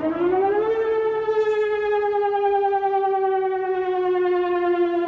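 Civil defense siren winding up to a high wail within the first second, then holding a long tone that slowly sinks in pitch.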